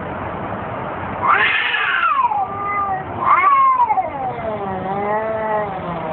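Domestic cats caterwauling in a fight: long, wavering yowls that rise and fall in pitch, with two louder, higher cries about one and three seconds in.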